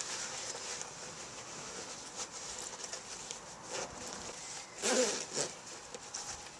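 Textile motorcycle jacket rustling as it is zipped up and its collar fastened: a few short scrapes, the loudest about five seconds in.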